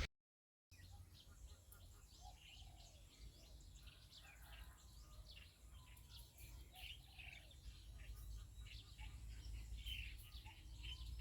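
Faint birds chirping with short, scattered calls, over a low steady hum.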